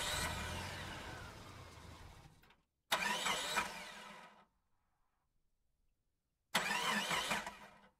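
Three separate bursts of car engine sound, each starting suddenly and fading away over one to three seconds, with dead silence between them.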